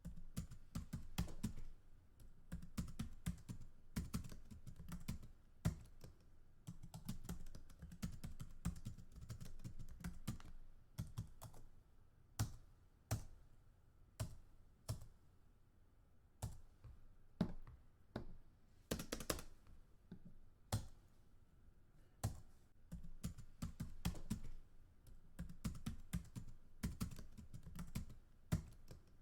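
Typing on a computer keyboard: quick runs of key clicks broken by short pauses. In the middle stretch the strokes come sparser, with single keystrokes spaced apart, and the rapid typing picks up again near the end.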